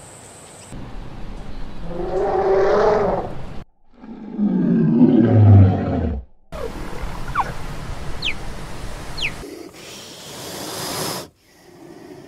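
Short wild-animal sound clips spliced together with abrupt cuts. The loudest is a lion's deep roar falling in pitch, about four to six seconds in.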